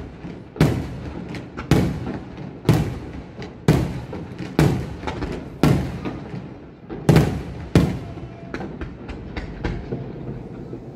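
Aerial firework shells bursting overhead, about one loud bang a second, each trailing off into a rumbling echo. After about eight seconds the reports turn smaller and quicker, a crackling run of lighter bangs.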